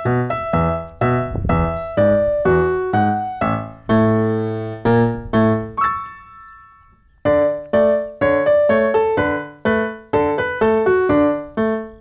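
Background music: a steady run of single struck notes, each fading away, that dies out about six seconds in and picks up again a second later.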